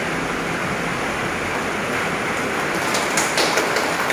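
Steady hiss of room noise in a large hall, with a few hand claps starting about three seconds in.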